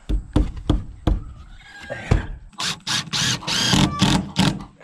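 A few sharp knocks as a wooden board is set against the coop wall, then a cordless drill driving a screw into the board in several short runs, its pitch bending as the screw bites.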